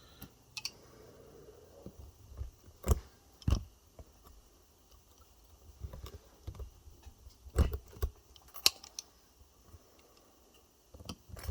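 Irregular sharp metallic clicks and taps, a few louder ones several seconds apart, from pliers working spot-welded nickel strip off e-bike battery cells.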